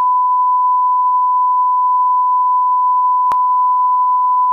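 Steady 1 kHz line-up test tone, the reference tone that goes with colour bars, with one short click about three seconds in.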